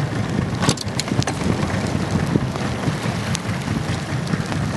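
Small outboard motor running at idle under rain and wind noise. A few sharp taps come about a second in and again past three seconds.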